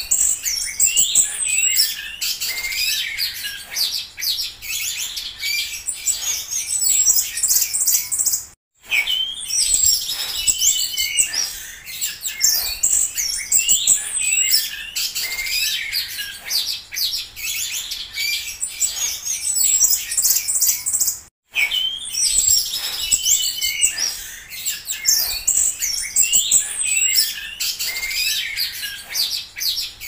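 Orange-headed thrush (anis bata) singing a fast, unbroken run of high warbles, chirps and whistles. The song cuts out twice for a split second.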